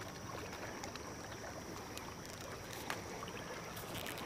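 Faint water lapping against a boat hull, with a few light clicks scattered through.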